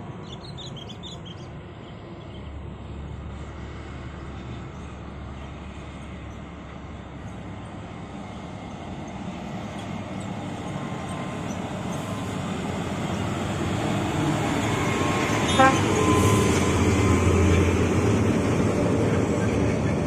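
Scania V8 road-train truck hauling two dump trailers loaded with about 150 tonnes of coal, its engine and tyres growing steadily louder as it approaches and passes. A short horn toot comes about three-quarters of the way through.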